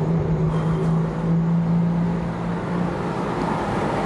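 City street traffic: road noise from passing vehicles, with one engine's steady low hum that stops about three seconds in.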